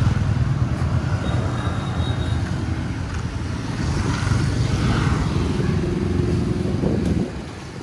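Motorbike engines and road noise along a busy street, a steady low rumble that stops suddenly about seven seconds in.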